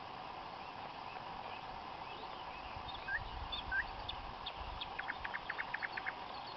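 Frog chorus on a river marsh, a steady massed din, with scattered bird chirps. Two short calls stand out a little after three seconds in, and near the end comes a quick run of about nine short calls, about eight a second.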